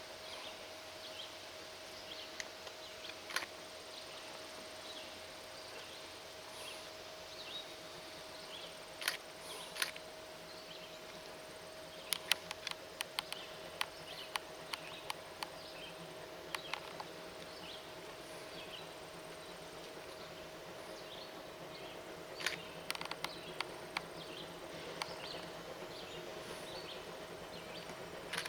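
Quiet rural outdoor ambience, with insects and small chirps throughout over a steady faint hum. Scattered sharp clicks come in a few clusters.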